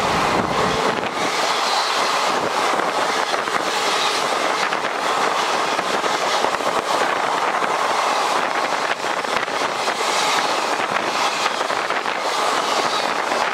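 Passenger coaches of an Indian Railways express passing at speed on the adjacent track, close by: a loud, steady rush of wheel and air noise with rapid clicking of wheels over the rail joints. A deep rumble fades out within the first second.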